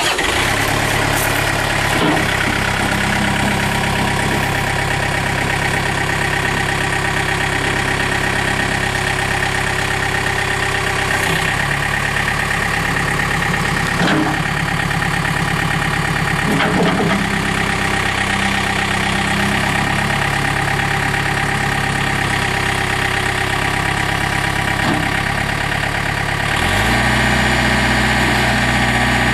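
Yanmar diesel engine of a John Deere 110 tractor loader backhoe idling steadily just after being started. Near the end the engine speed steps up to a faster, slightly louder run.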